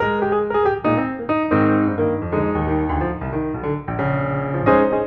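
Background piano music, notes played in a quick, flowing line.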